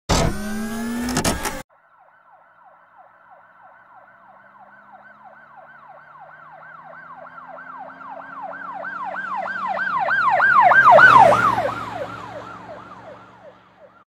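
A short, loud sound effect with rising tones cuts off suddenly about a second and a half in. Then an emergency vehicle siren wails in a fast yelp, about three cycles a second, growing louder to a peak near eleven seconds and fading away as it passes.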